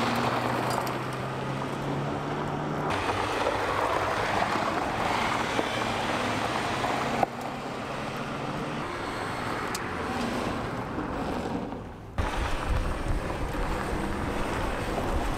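Lada 4x4 engine running off-road, heard through several abrupt cuts, with heavy wind buffeting on the microphone in the last few seconds.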